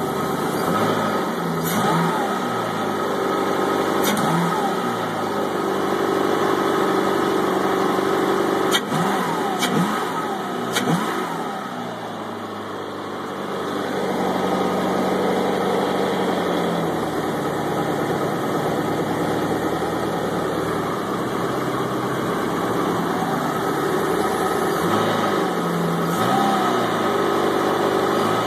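Mercruiser 888's Ford 5.0 V8, newly converted to EEC-IV fuel injection, idling on its first run, with a few short blips of throttle worked by hand, the revs rising and dropping back each time.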